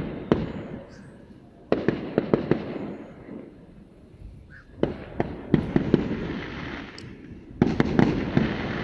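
Distant aerial fireworks going off in three volleys of sharp bangs, about every three seconds, each trailing off in a rumble.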